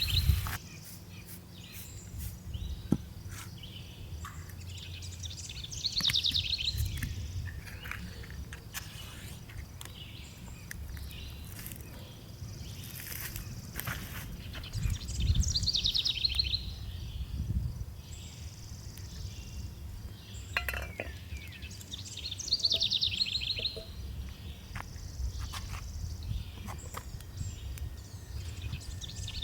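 A bird repeatedly sings a short, fast, descending trill, several seconds apart, over a steady low rumble with occasional light knocks.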